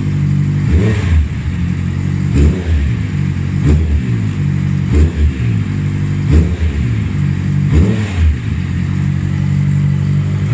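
Honda CB650F inline-four through a Two Brothers slip-on exhaust, idling and blipped six times with quick small twists of the throttle, each rev rising and dropping straight back to idle about every second and a half.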